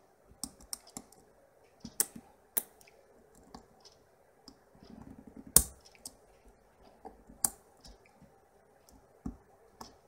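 Lock pick and tension wrench working the pins of a brass ES half euro cylinder during single-pin picking: irregular sharp metallic clicks and faint scraping, the loudest click about five and a half seconds in.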